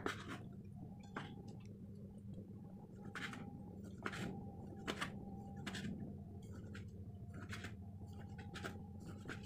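Kitchen knife slicing a block of tempeh into thin slices on a wooden cutting board: faint crunchy cuts, one every second or so, over a steady low hum.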